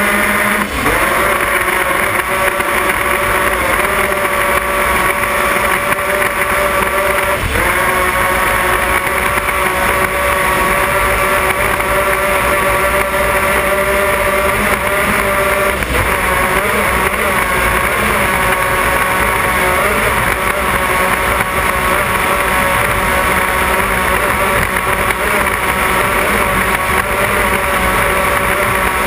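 Offshore racing powerboat's engines running flat out at speed, a steady high engine drone over a loud hiss of wind and spray. The engine pitch dips and recovers briefly under a second in, and wavers again a few times later.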